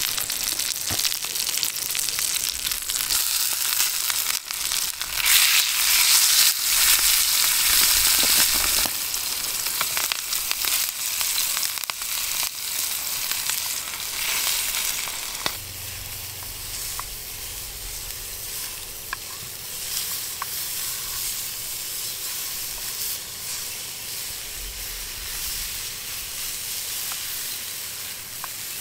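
Venison steak sizzling in hot oil in a frying pan over a twig stove. The sizzle is strongest in the first half and settles to a quieter, steady hiss from about halfway through.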